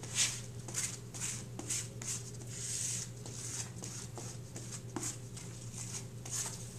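A scrap of cardboard rubbed back and forth over a glue-coated cardboard square, smoothing out the glue: irregular dry scraping strokes, roughly one or two a second.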